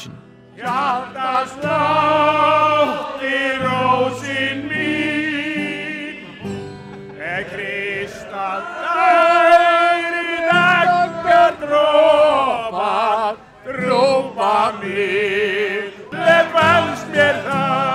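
Men singing a song together to a strummed acoustic guitar, the voices held and wavering on long notes over steady low chords.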